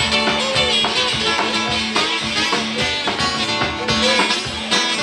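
Live acoustic guitar strummed over a drum kit playing a steady groove.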